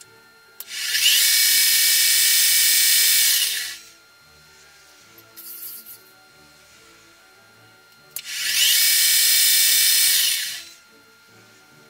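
Milling machine spindle switched on twice with a click, each time running a small drill into a steel eccentric rod for about three seconds with a high-pitched whine that rises as it spins up, then runs down. Faint background music underneath.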